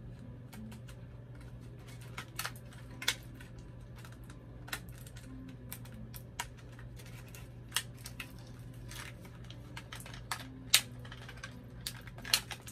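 Irregular sharp clicks and crinkles of plastic doll packaging being handled and opened by hand, the loudest clicks near the end, over a steady low hum.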